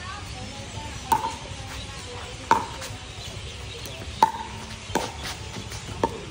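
A pickleball rally: five sharp, hollow pocks of paddles striking the plastic ball, irregularly spaced, each with a brief ring.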